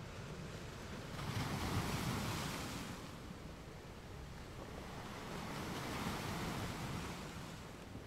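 Calm ocean waves: two swells of surf, the first building about a second in and fading away, the second broader one rising and easing off in the latter half.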